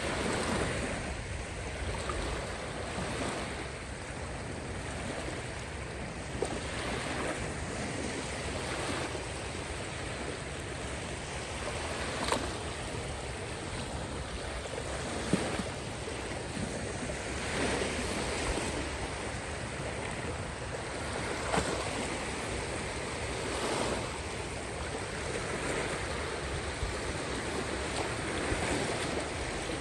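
Caspian Sea waves breaking and washing on the shore, surging in swells every few seconds, with a few brief sharp splashes or clicks.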